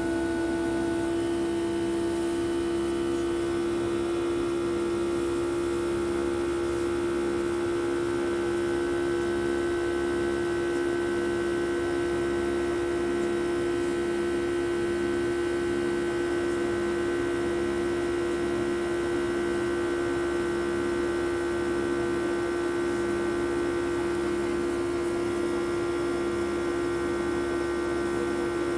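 Jet airliner engines heard inside the cabin during the climb after takeoff: a steady loud hum with a fixed drone and fainter higher whining tones over a constant rush of noise. A slow, regular throb comes through about once a second.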